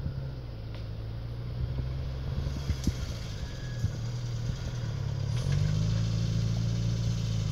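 Engine of an off-road buggy working as it climbs a steep dirt hill, a steady low drone that grows louder about two-thirds of the way through, with a few sharp clicks near the middle.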